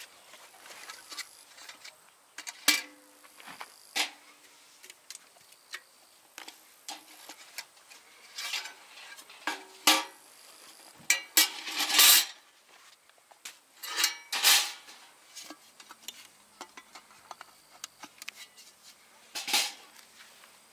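Metal utensils and cookware being handled: scattered clinks and knocks, with a quick run of clatter about twelve seconds in.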